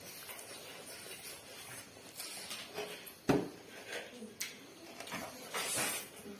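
Close-up eating sounds: chewing and lip smacking as rice is eaten by hand, with fingers scooping rice in metal woks. One sharp click stands out about three seconds in.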